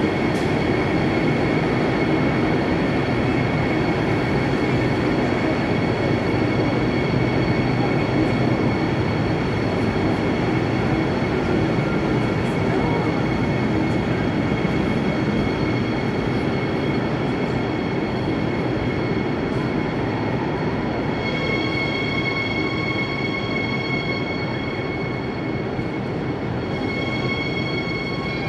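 Israel Railways passenger train pulling into an underground station platform: a steady running rumble with high wheel squeal tones, gradually fading as the train moves off down the platform.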